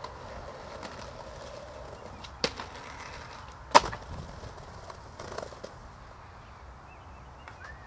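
Skateboard wheels rolling over brick pavers, with a sharp click about two and a half seconds in and a loud clack of the board near four seconds in, followed by a few lighter knocks of the board.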